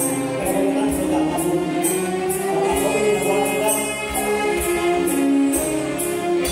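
Live band music from electric keyboard and drum kit, with sustained keyboard chords and a cymbal stroke about twice a second.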